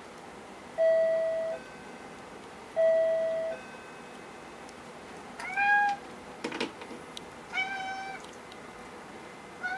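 A two-note electronic door chime rings twice, then a Norwegian Forest Cat meows three times, the last call near the end, with a short clatter between the first two meows. The cat is calling because the chime means its owner is at the door.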